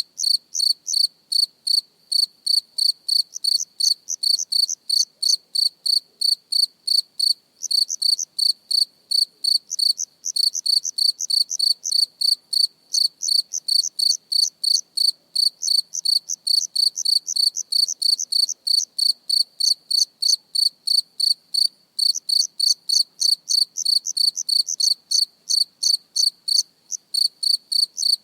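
A single cricket chirping close up: short, high-pitched chirps repeated evenly at about three a second, with a few brief pauses.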